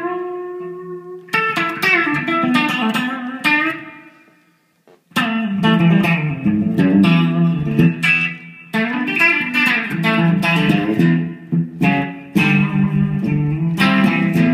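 Epiphone Les Paul Custom electric guitar played with a clean tone on its lead-position Gibson 490T humbucker. A chord rings, then a run of picked notes fades out about four seconds in, and after a short break picked and strummed chords carry on without stopping.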